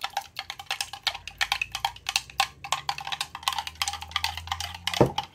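Metal spoon stirring coffee dye in a glass mason jar, clinking rapidly against the glass, with one sharper knock about five seconds in.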